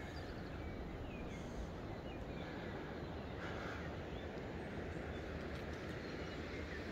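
Steady outdoor background noise, with a few faint short bird calls over it.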